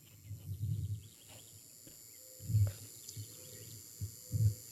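Horse moving at a collected jog, heard as a few faint, dull low thumps, the clearest two in the middle and near the end.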